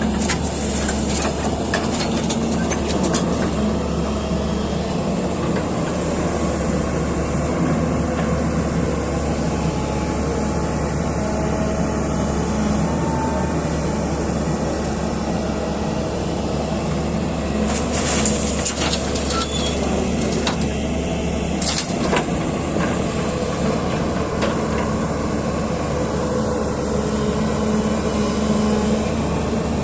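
Heavy diesel machinery running steadily under load at an excavator loading dump trucks. A few brief noisy bursts come near the start and again about two-thirds through, with one sharp knock just after.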